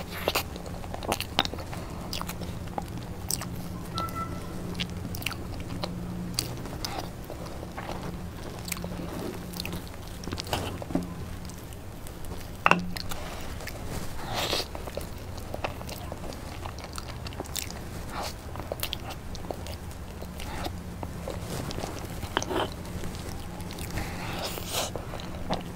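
Close-miked eating sounds of soft, creamy layered crepe cake: wet chewing, bites and mouth clicks scattered through, with a fork working through the cake and one sharper click a little before the middle. A low steady hum runs underneath.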